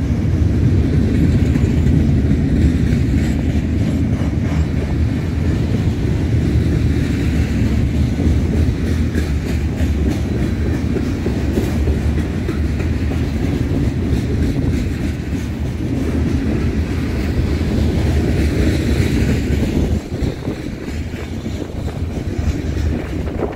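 BNSF freight train rolling past, a steady heavy rumble of its cars with wheel clatter on the rails, easing off somewhat near the end.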